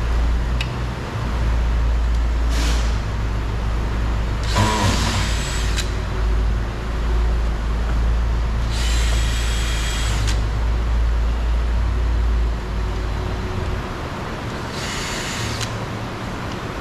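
A cordless drill driver with a Phillips bit spins three times, each run about a second long, backing out the door-panel screws. A steady low rumble of traffic runs beneath it and drops off near the end.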